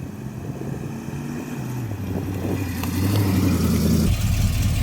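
A car engine running, its pitch holding steady and then shifting down a step about two seconds in.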